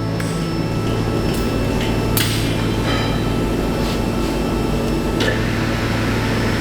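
A few sharp knocks of metal striking a sand mould to break it open and free a fresh bronze casting, the strongest about two seconds in.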